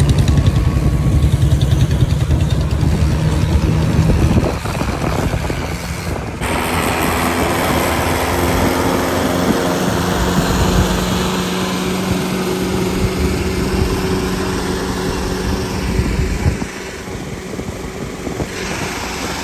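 Diesel tractor engines running at road speed alongside passing vehicles, a Mahindra tractor's among them. The sound changes abruptly about six seconds in.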